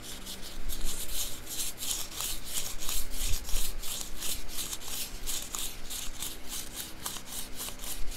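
Rapid back-and-forth scraping of a small tool against metal, several strokes a second, as it is worked in the disassembled padlock.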